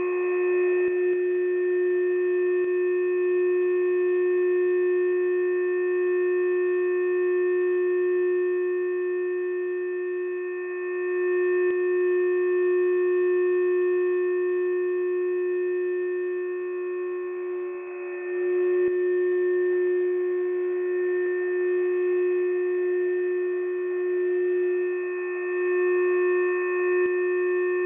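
UVB-76 'The Buzzer' shortwave station transmitting a continuous steady droning tone with overtones, heard through a radio receiver, in place of its usual short repeated buzzes. The tone dips briefly about 18 seconds in, and a few faint clicks sit under it.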